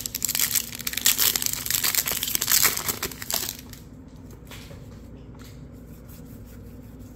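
Crinkling and tearing of a baseball card pack's foil wrapper as it is ripped open, lasting about three and a half seconds, followed by faint soft rustles of the cards being handled.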